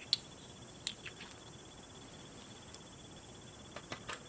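Small plastic miniature pieces being handled: a few light clicks and taps, one just after the start, a few about a second in, and a cluster near the end.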